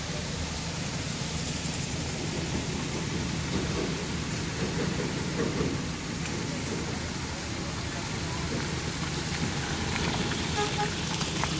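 Steady rushing noise of wind buffeting the microphone on a moving motorcycle, over the low, even hum of its engine.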